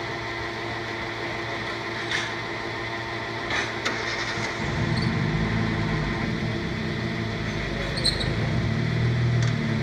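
Fuel dispenser pump running with a steady hum as diesel is pumped, with a few light clicks. About halfway through, a vehicle engine's low rumble comes in and stays.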